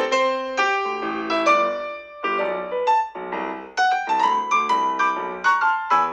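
A Samsung Galaxy ringtone from the set added in One UI 4 playing: a melodic piano-like keyboard tune of notes and chords struck about twice a second, each left to ring and fade.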